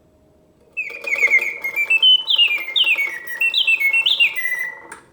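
Vintage Karl Griesbaum singing bird cage's bellows-blown mechanical bird song: quick whistled chirps starting about a second in, then about four falling whistled slides, over a faint hum of the mechanism. The song stops near the end as the cage goes into its pause.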